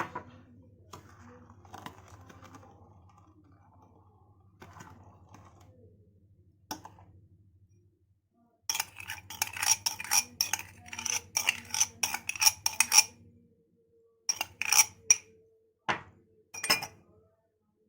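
A spoon stirring instant coffee, sugar and hot water in a container. Quiet scraping at first, then rapid clinking against the sides for about four seconds, then a few separate clinks.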